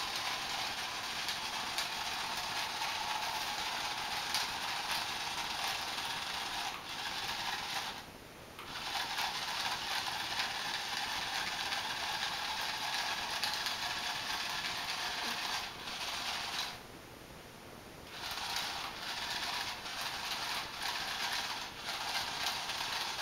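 Small electric motor and gears of a toy spider whirring steadily as it moves, cutting out briefly twice.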